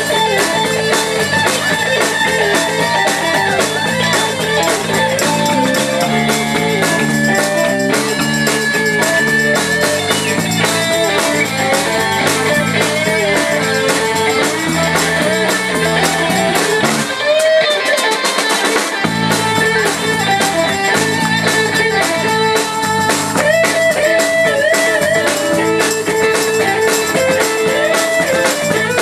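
Live blues-rock band playing an instrumental section: electric guitar lead over bass, drums and keyboards. About seventeen seconds in, the bass drops out for about two seconds, then the full band comes back.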